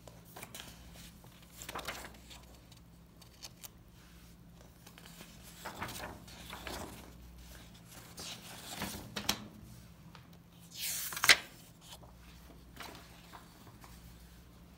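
Paper pages of a bound textbook handled and turned by hand: several soft rustling swishes, with a sharper page flip about eleven seconds in.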